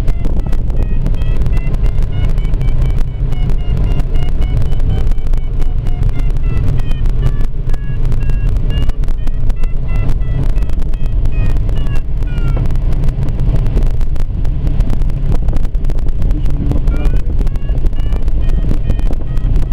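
Steady rush of air in a glider's cockpit in flight, with the audio variometer beeping in tones that rise and fall in pitch, signalling lift as the glider climbs.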